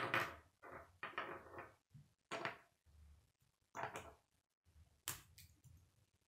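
K'nex plastic rods and connectors clicking and rattling as they are handled and fitted together, in a string of irregular short clatters.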